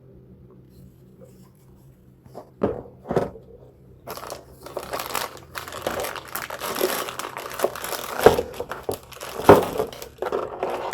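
Packaging crinkling and rustling as it is handled and unwrapped, after two light knocks. The crinkling starts about four seconds in and goes on busily to the end.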